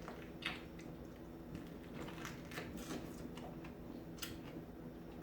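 Someone eating a lemon: faint, scattered clicks and rustles of chewing and handling the wet fruit, over a steady low hum.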